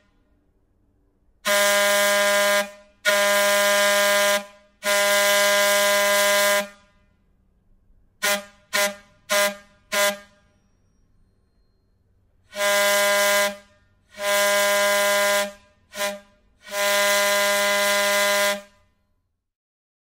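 Antique train air whistle sound effect blowing a pattern of blasts: three long blasts, then four short toots, then two long, one short and one final long blast.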